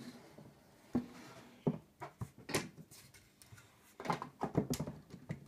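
Plastic LEGO Slave 1 model clacking and knocking as it is handled and turned on a tabletop: a few separate sharp clacks, then a quick cluster of rattling clicks about four seconds in.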